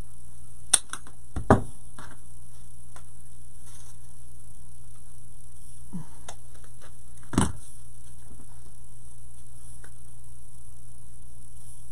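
Steady electrical hum under a few sharp clicks and taps of small craft items being handled on a work table, the loudest about a second and a half in and another about seven seconds in.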